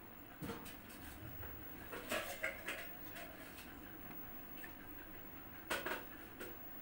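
A crochet hook and yarn being handled: a few soft clicks and rustles, with a small cluster about two seconds in and another near the end, over a quiet room background.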